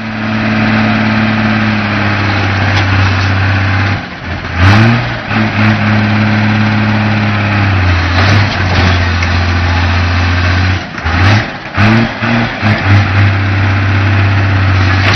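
Diesel engine of an ACE mobile crane running steadily under load, revved up briefly several times, about four seconds in and again around eleven to twelve seconds, while the crane lifts an overturned bus.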